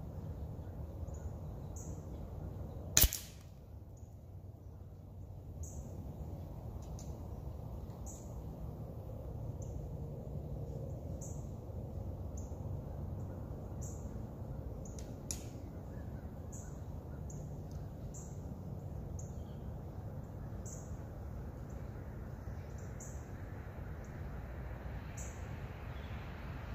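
A single sharp crack about three seconds in: a shot from a Weihrauch HW 97 underlever spring-piston air rifle, its pellet snapping the head off a Q-tip target. Faint small high chirps repeat every second or so over a low, steady outdoor background.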